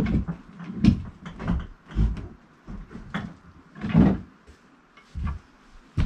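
Irregular knocks and thumps, about one a second, as a log is levered and shifted across the steel bunks of a portable sawmill bed.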